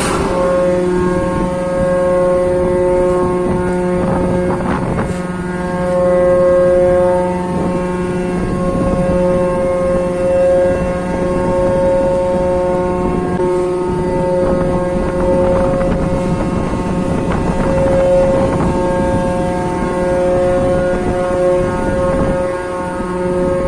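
Mooring winch machinery on a large container ship running with a steady hum of several fixed tones, swelling a little now and then as the lines are worked.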